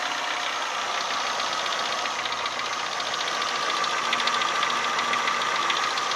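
Renault Symbol 1.4-litre 8-valve four-cylinder petrol engine idling hot with a rapid, steady knocking tick that appears only once the engine is warm; the owner does not know the cause.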